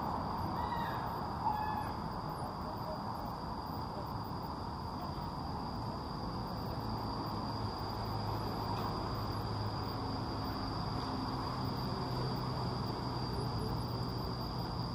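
Shaded park ambience: a steady high-pitched insect drone throughout, with a few short bird calls in the first two seconds, over a low steady rumble.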